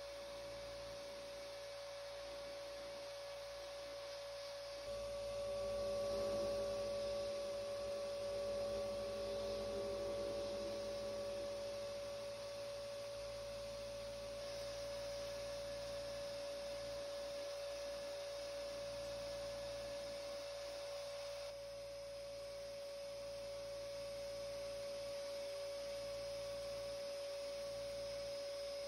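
Sandblasting cabinet running while small steel parts are blasted: a steady droning hum over a faint even hiss, shifting slightly in level a few times.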